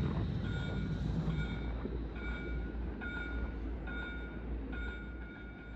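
Electronic warning beeps repeating a little faster than once a second, over the low rumble of a tram.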